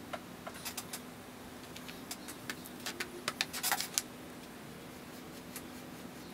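Small screwdriver tip clicking and scraping lightly against the aluminium crankcase as excess gasket sealant is worked off the joint face. There is a scatter of light clicks over the first four seconds, then only a faint steady hum.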